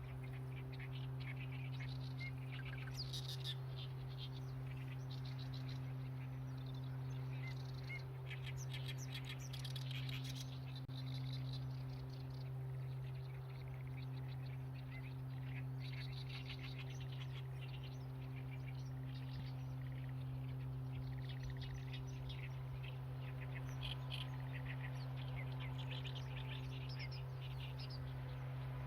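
Many small birds chirping and singing busily, with overlapping short calls and trills, over a steady low hum.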